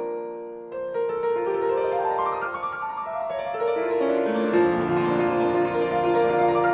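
Background piano music, its notes stepping upward in a short run about one to three seconds in.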